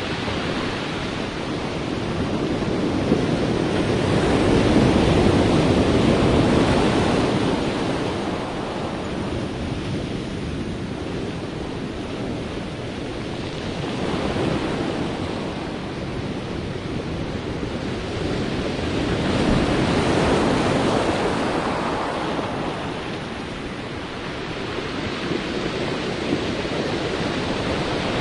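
Sea waves breaking and washing ashore, a continuous rushing surf that swells and eases in slow surges, the strongest at about 5 seconds and about 20 seconds in.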